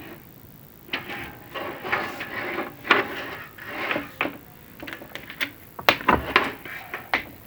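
Chimney inspection camera scraping and knocking against the inside of the flue as it is fed down, in irregular rubbing bursts broken by sharp clicks.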